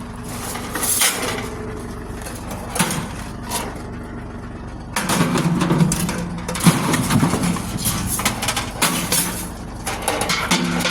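Truck engine idling steadily while light scrap metal, a small metal barbecue, is picked up and loaded. There are a few clanks in the first few seconds, then a longer run of clattering and rattling about halfway through.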